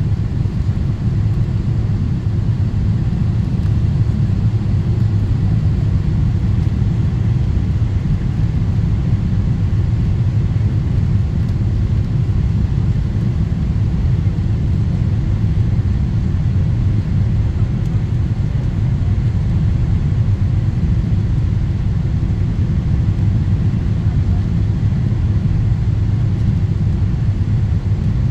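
Steady low rumble of jet engines and airflow inside an airliner cabin as the plane descends to land.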